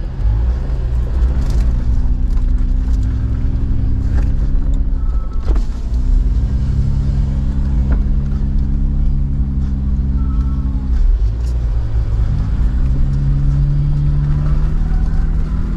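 Jeep Wrangler JL engine running under a steady low rumble, its note rising and holding for several seconds three times, dropping back in between.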